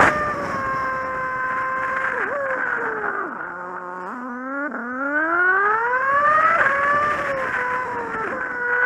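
Kawasaki Z750 inline-four motorcycle engine, heard from the bike with wind noise and sped up along with the footage, which raises its pitch. It runs steadily, then falls in pitch as the bike slows almost to idle about three and a half seconds in. It then climbs again through upshifts as the bike accelerates away.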